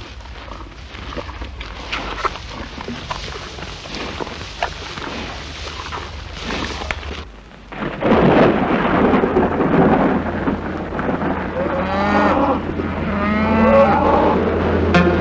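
Fire crackling with scattered pops, then a sudden loud roar of flames about eight seconds in. Cattle low twice in alarm near the end, as a cattle barn burns.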